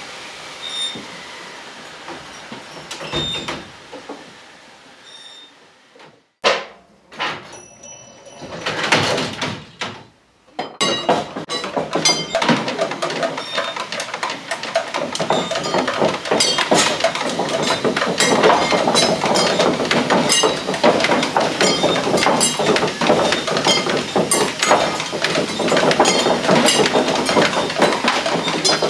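Found-object percussion clattering and rattling in a dense, continuous racket of struck objects. A few scattered bangs come first, then the clatter starts abruptly about ten seconds in and grows louder toward the end.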